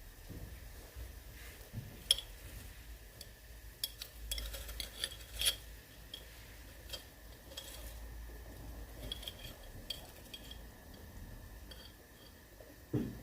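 Kitchenware clinking: a run of light clicks and clinks, busiest between about two and six seconds in, with a soft thump near the end.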